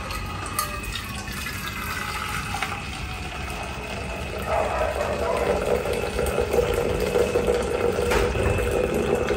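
Hot water being poured from a pot into a cloth coffee strainer, with brewed coffee trickling through into the pot below. The pouring grows louder about halfway through.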